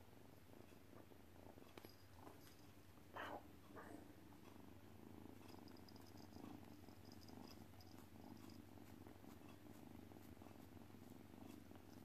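Kitten purring faintly and steadily while curled up against a person, with two brief sounds about three seconds in.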